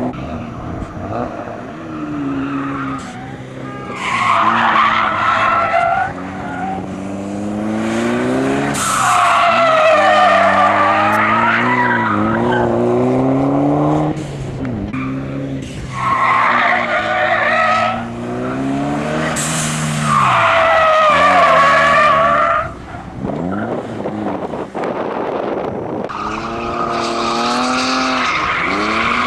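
Cars being driven hard through tight track corners: tyres squeal in about five long bursts of two to three seconds each, wavering in pitch, while the engine revs rise and fall between them.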